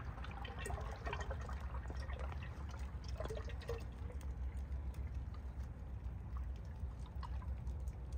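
Dark used engine oil pouring in a stream through a plastic funnel into a plastic jug, with small trickles and drips, over a steady low hum.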